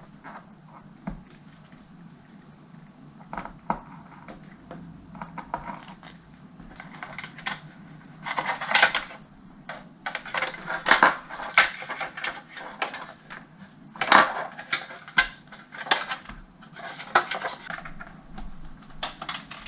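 Hands working on the brittle plastic of a Dell Latitude CPi laptop's screen assembly, with a tiny screw and small parts being handled: irregular clicks, scrapes and small clatters, sparse at first and busier from about seven seconds in.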